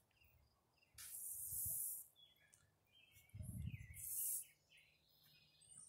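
Songbirds chirping faintly, with a falling whistle near the end. Two bursts of high hiss, each about a second long, come about a second in and again around the middle, with a brief low rumble just before the second.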